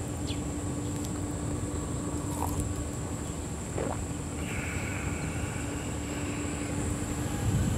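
Steady low background rumble with a faint constant hum; a few faint short chirps and, from about halfway through, a faint higher hiss join it.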